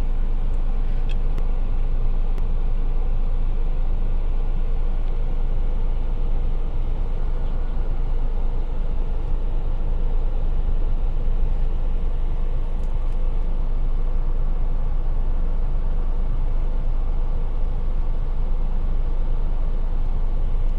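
Steady car noise heard from inside the cabin: a constant low engine and road rumble with a faint steady hum.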